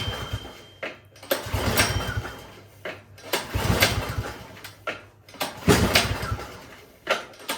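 Recoil pull-starter on a Craftsman snowblower yanked about four times, roughly every two seconds. Each pull turns the engine over with a quick chugging whirr, but it never fires: a no-start, which a cross-threaded spark plug turns out to cause.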